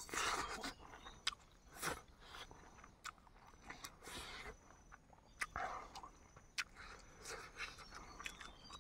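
A person chewing and biting into cooked chicken: irregular crunches and sharp clicks of eating.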